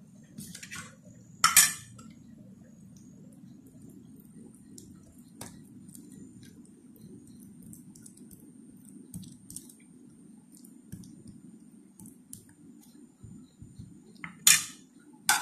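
Metal spoon clinking and scraping against a plate while sauce is spread on a flatbread, with a sharp clink about a second and a half in, another near the end, and light faint ticks in between.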